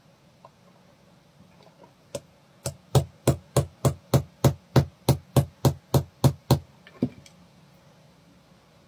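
Handle of a pair of scissors used as a hammer, knocking on a metal watch bracelet resting on a box to drive out a link pin. About fifteen sharp, even knocks, about three a second, starting about two seconds in, with one more a little after they stop.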